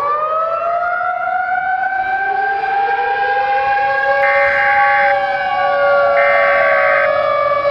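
Civil defense siren sounding several tones at once, finishing its wind-up in pitch and settling into a steady wail, as an attack warning. A higher steady tone pulses on about four seconds in and again two seconds later, each for about a second.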